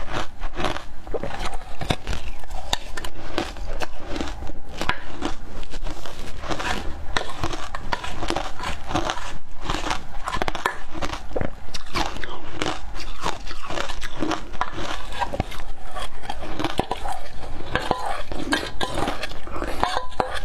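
Ice crunching and cracking between teeth as matcha-coated ice is chewed, a dense run of irregular crunches, with a metal spoon at times scraping the steel bowl.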